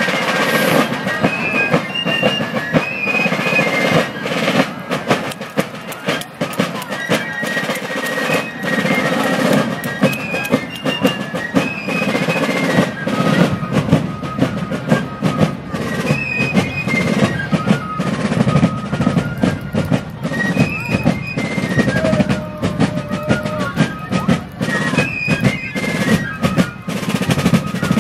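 Fife and drum corps playing a march: several fifes carry a high melody over the steady beat and rolls of snare and bass field drums.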